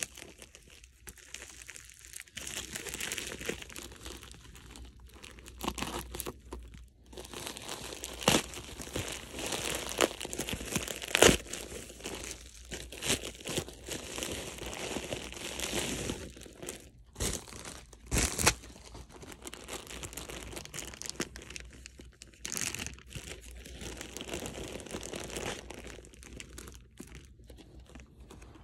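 Plastic packaging crinkling and rustling as a poly mailer is cut open and handled and clear zip-top plastic bags are pulled out, with a few sharp crackles, the loudest about eleven seconds in.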